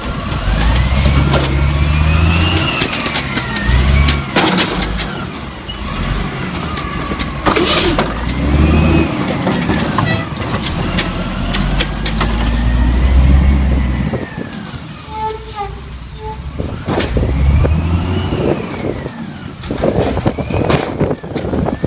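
Automated side-loader garbage truck emptying a wheeled recycling cart. The diesel engine revs to drive the hydraulics, with a whine that rises and falls in pitch several times as the arm grabs, lifts and sets the cart back down. A few sharp knocks come as the cart is dumped.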